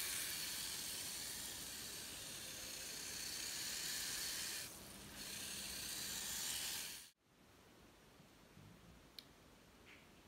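Steady high hiss from an electric RC drift car running on a concrete floor, dipping briefly near five seconds. It cuts off abruptly about seven seconds in, leaving quiet room tone with one faint click.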